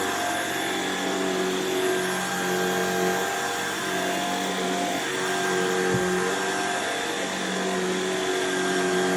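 Shark IX141 cordless stick vacuum running steadily: a motor whine over rushing air, its tones wavering as it is used.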